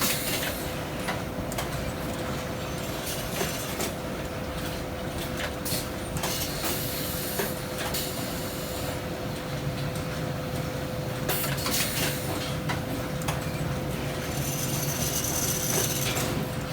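Workroom machinery humming steadily, with irregular clicks and clinks of hand work on a garment zipper under repair.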